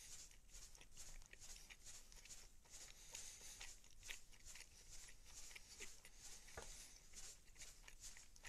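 Faint chewing close to the microphone: an irregular run of soft, short mouth clicks as the last mouthful of a meal is eaten.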